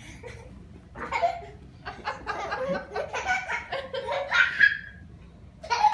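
People laughing: after a quiet first second, a few seconds of pulsing laughter, a short pause, then loud laughter breaking out again near the end.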